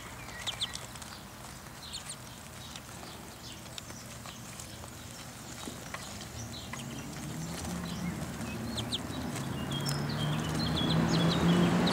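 A flock of young domestic ducklings peeping: scattered short, high calls. In the second half a low steady drone grows louder underneath them.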